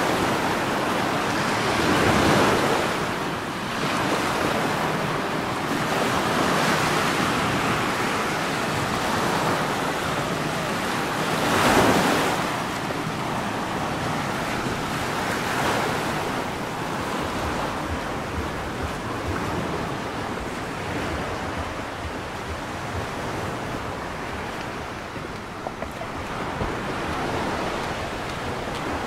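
Sea waves washing against the shore, a steady rush that swells as waves break, loudest about twelve seconds in, with some wind on the microphone.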